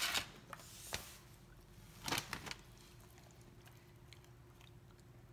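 A Great Dane moving on a plush dog bed: a single soft click about a second in and a brief patch of rustling and clicks about two seconds in, over a faint steady hum.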